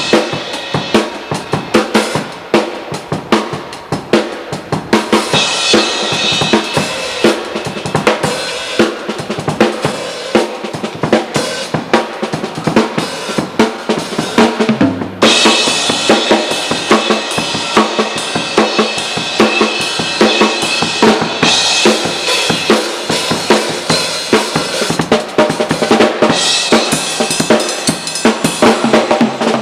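Drum kit played solo, loud and close to the microphone: a dense, continuous run of snare and bass drum hits with cymbals ringing over them, breaking off for a moment about halfway before the playing resumes.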